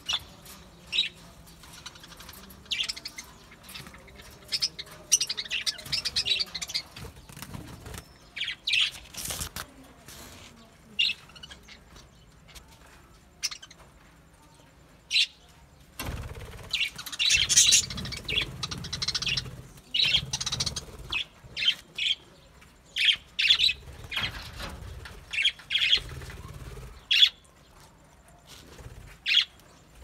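A flock of budgerigars chirping and chattering in many short high calls, with busier spells a few seconds in and again just after the middle.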